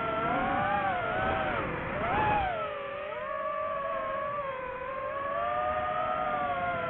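DJI FPV drone's brushless motors and propellers whining, the pitch climbing sharply about two seconds in, dropping back, then holding fairly steady with slow rises and falls as the throttle changes.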